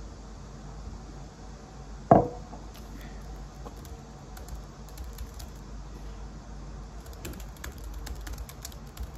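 A single sharp clank with a brief ring about two seconds in, then a flurry of light, quick clicks near the end, over a steady low hum.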